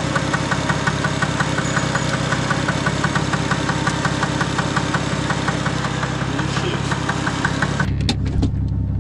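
Nissan Skyline's RB straight-six running, with a rapid, even tapping of about eight knocks a second over the engine's drone; the owner suspects a knock inside the engine. The tapping stops about eight seconds in, leaving only a low hum.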